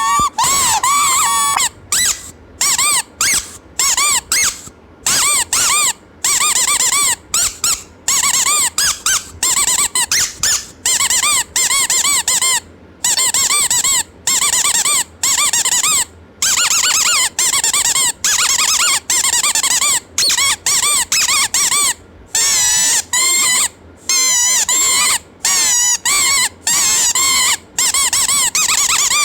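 Squeaky baby toy squeezed over and over: many short, loud squeaks whose pitch arches up and down, some single and some in quick runs, with brief silent gaps between.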